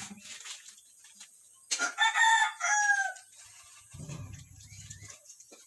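A rooster crowing once, about two seconds in, for a little over a second, ending on a falling note.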